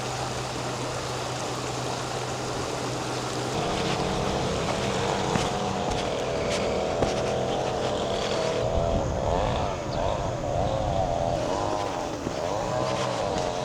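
A motor vehicle's engine running at a steady low pitch, growing louder about three and a half seconds in, then revving up and down repeatedly in the second half.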